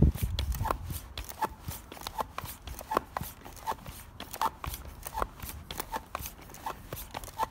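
Foot-operated floor pump worked steadily by foot: a short click on each downstroke, about ten strokes at a little over one a second. It is pumping a narrow high-pressure road bike tyre, up to about 5 bar.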